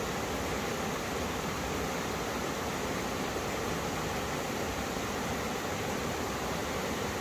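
Two mountain streams meeting, their water rushing over rocks in a steady, even sound.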